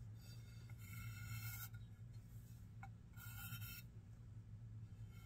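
Underglaze pencil scratching across a bisque-fired clay plate in three faint drawing strokes, each under a second, about two seconds apart, over a steady low hum.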